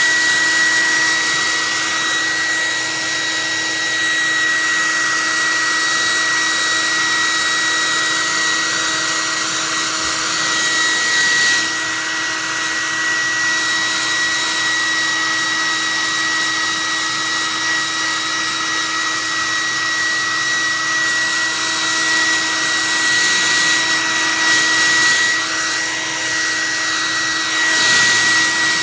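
Handheld hair dryer running on high: a steady whine with a strong high tone over rushing air, the rush swelling and easing a little as the dryer is waved back and forth.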